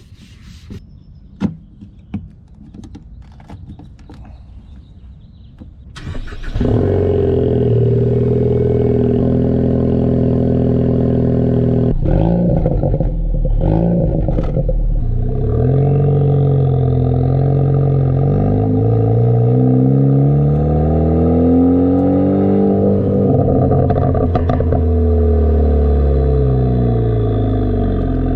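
Ford Focus ST's turbocharged four-cylinder engine, heard close at the tailpipe of a Borla cat-back exhaust, starting suddenly about six seconds in after a few light clicks, settling to a steady idle, then revved repeatedly with the pitch rising and falling. A few sharp cracks come in among the revs, from a tune set up for pops and crackles.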